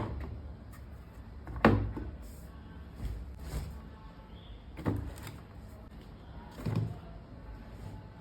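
Household handling sounds: about five separate knocks and clunks spaced a second or two apart, the kind made by things being set down or doors and cupboards being closed.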